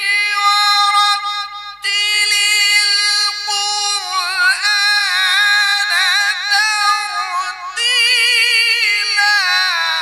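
A man reciting the Quran in a melodic chanted style, holding long high notes and ornamenting them with quick wavering turns. He takes a short breath about two seconds in, and the pitch rises for a final phrase near the end.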